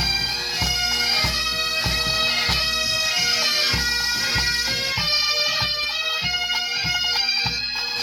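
Highland bagpipes playing, the drones sounding steadily under a chanter melody that moves between notes, with a regular low beat a little under twice a second.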